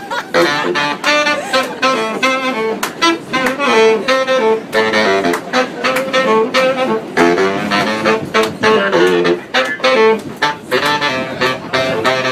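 Saxophones playing a jazz tune together, a baritone saxophone among them, the notes changing quickly, with sharp hits marking a beat throughout.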